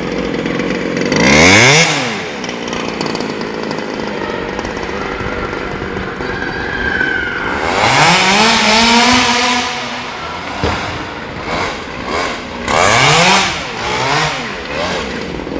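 Small two-stroke engine of a petrol 1/5-scale RC Baja buggy, running at a steady buzz and then revving hard in several bursts, about a second in, around eight seconds and around thirteen seconds. Its pitch climbs and falls with each burst of throttle.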